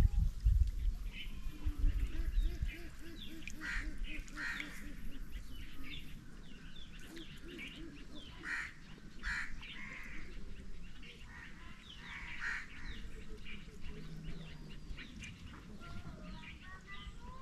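Birds calling: short calls scattered through, with a low wavering call early on. A low rumble fades out over the first couple of seconds.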